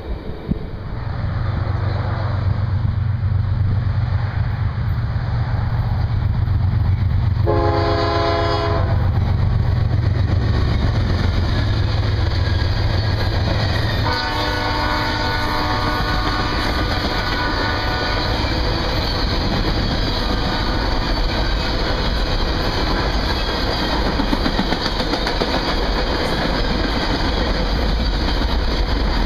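Freight train passing: a diesel locomotive's low rumble, with a horn blast of about a second some eight seconds in. A second, fainter horn sounds for a few seconds about halfway through, then the steady rolling clatter of refrigerated boxcars going by.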